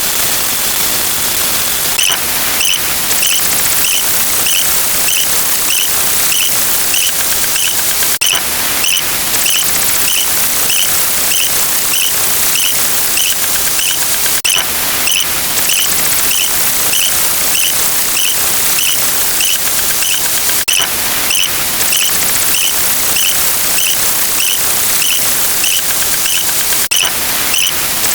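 A loud, steady hiss of noise with short, high squeaky blips repeating about three times a second from about two seconds in, and a sharp click roughly every six seconds.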